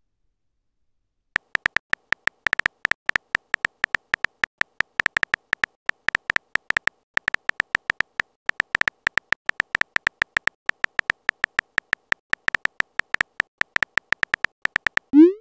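Rapid keyboard-tap click sounds from a phone texting app as a message is typed, short sharp ticks several a second with brief pauses, starting about a second in.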